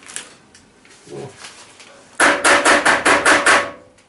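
Rapid knocking on a hard surface: about nine sharp knocks in a second and a half, roughly six a second, with a faint ring under them.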